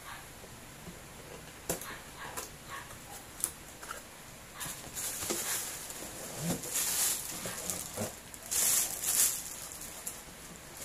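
A cardboard product box being opened by hand: a few light clicks and taps from the flaps, then rustling and scraping as a plastic-wrapped item is drawn out, the rustling loudest near the end.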